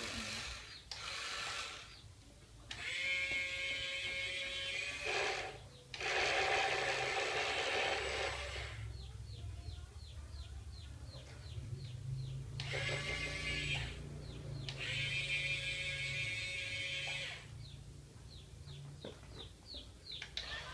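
Small geared electric motors of a remote-control toy excavator whirring in about six bursts of one to three seconds each, starting and stopping as the remote's controls are worked.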